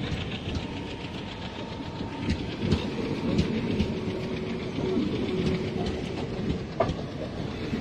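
Indian Railways passenger train rolling alongside the platform, its wheels clacking over the rail joints under a steady rumble of the coaches. A single sharp click comes near the end.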